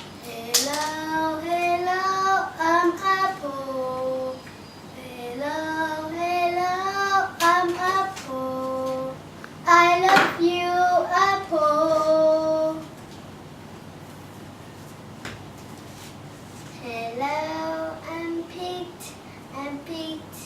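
A child's voice singing a song in long held phrases, stopping for about four seconds two-thirds of the way through, then starting again.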